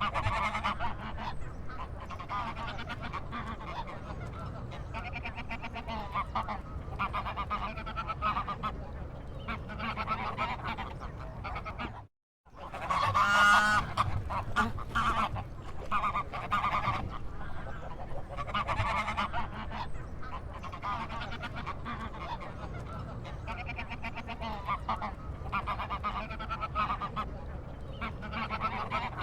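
Waterfowl in a park calling over and over, nasal honking calls over a steady low background rumble. The sound cuts out for a moment about twelve seconds in, and the loudest call comes right after.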